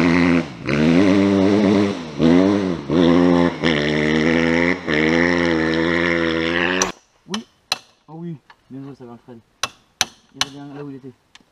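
Dirt bike engine revving up and down in repeated blips over a steady idle, cutting off abruptly about seven seconds in. Sharp clicks and taps of hand tools on a motorcycle follow, with brief voices.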